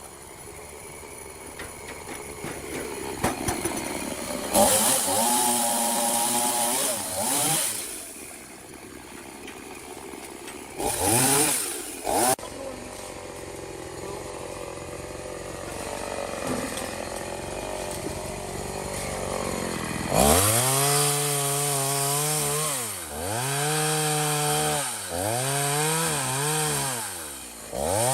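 Chainsaw engine running near idle at first, then revved in bursts. In the last third its note sags and climbs back about four times, as the chain loads up in the cut and frees again.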